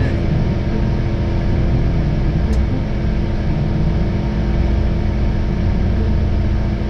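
Mazda RX-8 race car's rotary engine idling steadily, heard from inside the stripped-out cabin.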